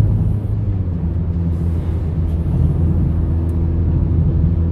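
Volkswagen Jetta 1.4 turbo cruising at a steady speed, its engine and tyre noise heard from inside the cabin as an even, low drone.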